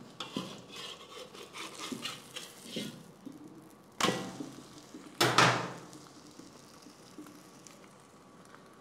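A metal spatula and a wide noodle kadai (wok) clinking and scraping while a thin omelette fries. There is a run of light clicks and scrapes, then two louder clanks about a second apart, leaving a faint sizzle.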